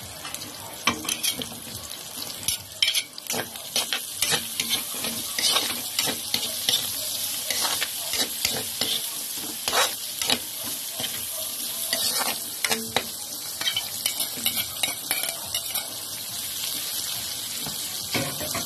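Garlic and ginger sautéing in hot oil in a pan: a steady sizzle, with irregular scrapes and knocks of a spatula against the pan as sliced carrot, bell pepper and onion are stirred in.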